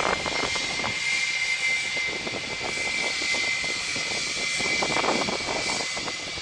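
Jet airliner engines at high power: a steady high whine over a broad rush, with crackling.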